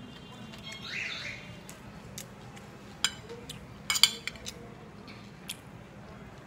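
Metal spoon scraping and clinking against a ceramic plate while scooping rice, a few sharp clinks with the loudest cluster about four seconds in.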